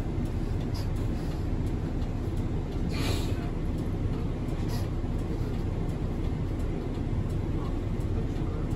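Hiroden city bus under way, heard from the front of the cabin: steady low engine and road noise, with a brief hiss about three seconds in.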